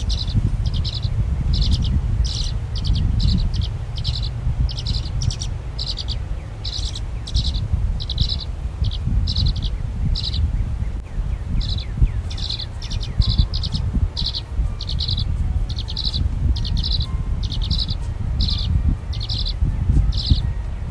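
A bird chirping over and over in short, high notes, about two a second, with a brief pause about halfway, over a steady low rumble.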